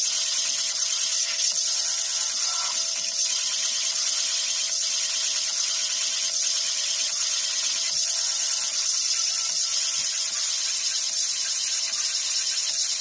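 Small Tesla coil running continuously, its corona discharge producing a steady, high-pitched hissing buzz with a constant tone underneath.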